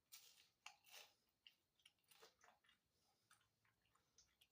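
Faint mouth sounds of someone chewing a fried potato waffle fry, a scatter of soft irregular clicks and crunches.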